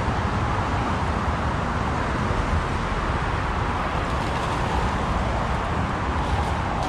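Steady road traffic noise from a highway bridge: an even rush with a low rumble and no single event standing out.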